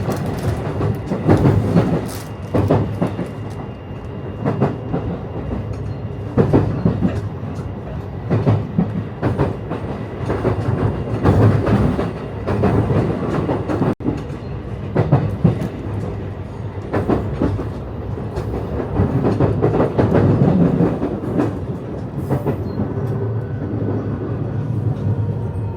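JR passenger train running on the rails, its wheels clattering irregularly over rail joints under a steady low rumble.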